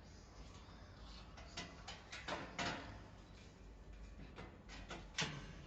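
Faint clicks and knocks of the back access door on an air suspension crimping machine being unlatched and opened to reach the oil tank, with a few short knocks about two seconds in and a few more near the end.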